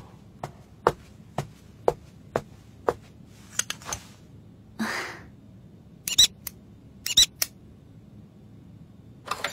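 Footsteps on a hard floor, six even steps about two a second, stopping about three seconds in. After them come a few soft rustles and two brief clusters of short, high squeaks.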